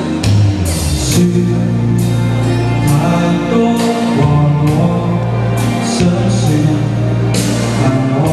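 A man singing a pop ballad into a handheld microphone over a recorded backing track, with a steady drum beat under the voice.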